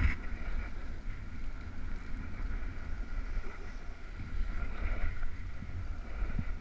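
Wind buffeting the microphone with a steady low rumble, over the hiss of sliding down a bumpy snow run.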